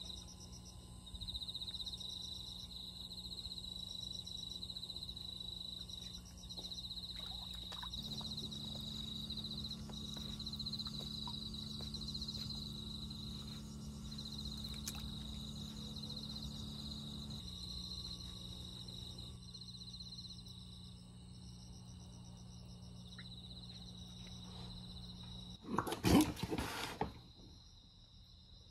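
Night insects chirping in a steady pulsing chorus over a low steady hum. Near the end comes one loud, harsh burst about a second and a half long.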